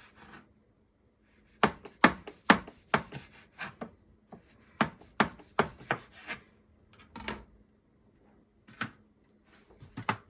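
A knife slicing a chilled log of cookie dough into rounds, each cut ending in a sharp knock on the cutting board, in quick runs of strokes with short pauses between.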